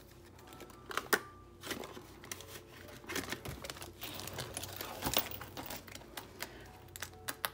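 Paper banknotes rustling as they are slid into a clear vinyl cash envelope in a ring binder, with plastic crinkling and scattered clicks as the envelope is handled and pressed shut. A sharp click comes near the end.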